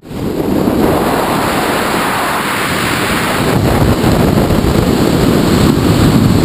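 Loud, steady rush of wind over the camera's microphone from airflow as a skydiver flies under an open parachute canopy. It builds over the first second.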